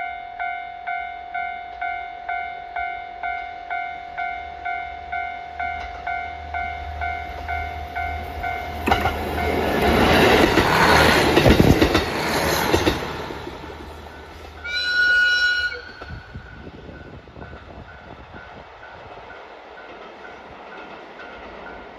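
Level-crossing warning bell dinging about twice a second while a KiHa 40 diesel railcar passes close by, its engine and wheels loudest around ten to thirteen seconds in. About fifteen seconds in the railcar gives one short horn blast, and the crossing bell keeps ringing more faintly afterwards.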